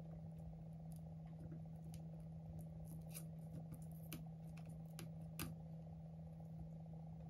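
A few faint clicks and scrapes from hand work on the battery adhesive strips of an opened iPhone 11, over a steady low hum. The clicks fall between about three and five and a half seconds in.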